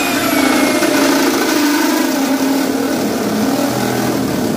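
Handheld power drill running steadily under load, its bit cutting through a car's sheet-metal body panel to widen an antenna hole from 7/8 inch to 1 inch. The motor's whine holds roughly steady, wavering a little in pitch as the bit bites.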